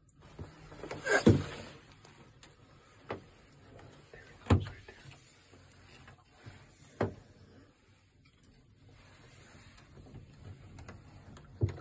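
A few short, sharp knocks and creaks, the loudest about a second in and the others spread out a second or more apart, over a faint low hum.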